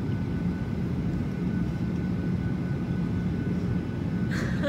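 Airliner cabin noise: a steady low rumble of engines and airflow, with a faint steady high whine over it. A short soft noise comes near the end.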